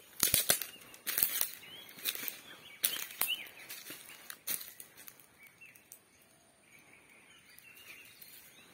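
Footsteps crunching on dry fallen oil palm fronds and twigs, roughly one crackling step a second, dying away after about five seconds.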